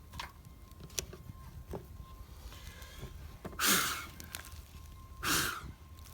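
Two long breathy exhalations about a second and a half apart, with a few faint sharp clicks before them.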